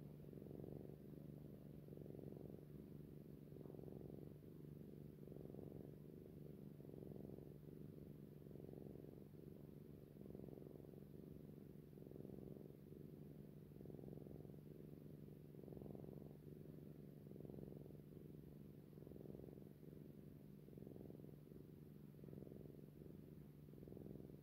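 Domestic cat purring steadily, the purr swelling and fading in an even rhythm about every second and a half.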